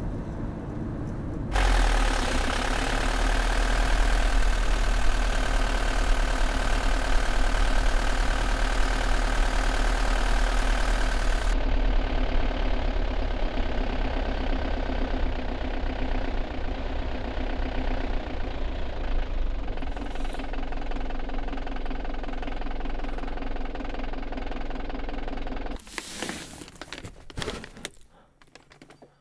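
Delivery van's engine and road noise heard from inside the cab while driving, loud and steady. It stops abruptly near the end, leaving only a few faint, brief sounds.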